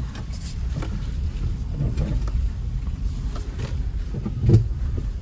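Suzuki S-Cross Hybrid driving off-road over rough, muddy ground: a steady low rumble broken by several knocks and thumps as the car jolts, the loudest thump about four and a half seconds in.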